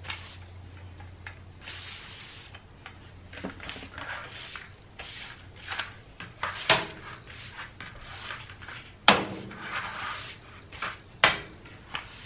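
Broom bristles sweeping in short strokes across a hard floor, pushing onion skins into a plastic dustpan. There are three sharp knocks, one a little past the middle, one about two-thirds through and one near the end.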